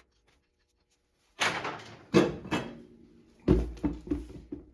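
A few loud clunks and knocks, each with a short ringing tail, starting about a second and a half in after a silent moment; the loudest hit comes about three and a half seconds in.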